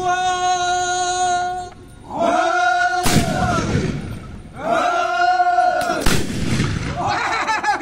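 Dancers' black-powder guns fired twice, about three seconds apart, between long held group calls from men's voices that swell and fall in pitch.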